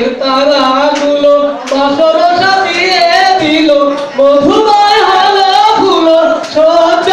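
A solo singer's voice singing a Bengali love song, loud and close, holding long wavering notes and sliding between them.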